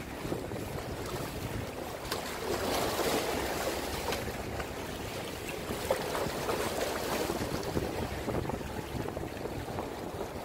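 Small waves lapping and splashing against shoreline rocks, with wind buffeting the microphone.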